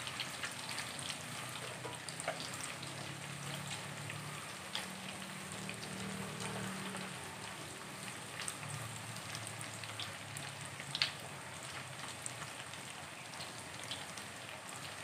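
Small pieces of wheat-and-mushroom mock chicken deep-frying in hot oil in a steel pot, being fried until crisp. The oil makes a steady sizzle with scattered crackles, and there is one sharper pop about three quarters of the way through.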